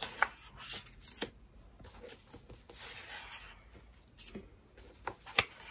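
Pages of a large hardback book being turned by hand: a soft paper swish about midway, with several short taps and clicks of paper and hands against the pages.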